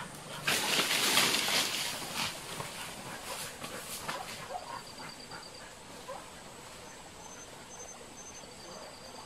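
Leaves and twigs rustling and crackling as a hunting dog pushes through forest undergrowth, loudest for a couple of seconds near the start. After that the rustling dies down, and high, evenly spaced chirps repeat in the background.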